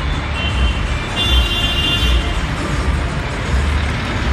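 Low rumble of cars idling in a line, with a couple of short high-pitched tones about a second in.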